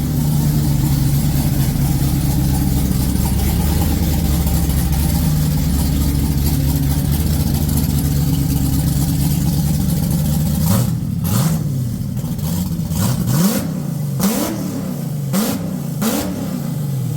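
Cammed Ford 302 (5.0) V8 with an F303 camshaft, AFR 185 heads and roller rockers, idling steadily. About ten seconds in it is blipped in a series of about six short revs, each rising and dropping back.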